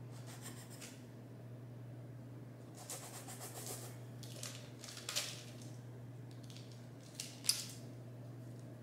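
A drinking glass used as a dough cutter, pressed and twisted through soft rolled sugar dough onto parchment paper on a wooden board: scraping and paper crinkling, with sharp light knocks about five and seven and a half seconds in. A low steady hum runs underneath.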